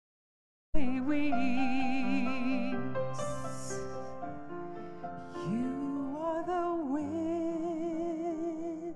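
Music with a wavering vibrato melody over sustained accompaniment, starting abruptly about a second in after dead silence.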